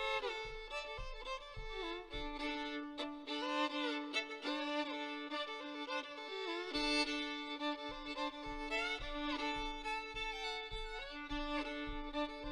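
Fiddle playing a tune, with a steady held low note under a melody full of sliding notes. Low thumps about twice a second keep a beat underneath and drop out for a few seconds in the middle.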